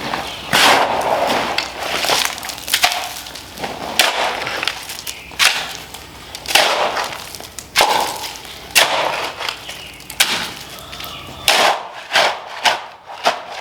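Repeated crunching, scraping strikes of digging into rocky soil, about one every second or so.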